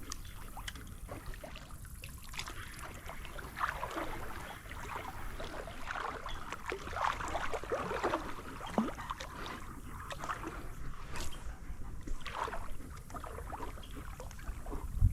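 Shallow creek water splashing and sloshing in irregular small splashes over a steady running-water wash.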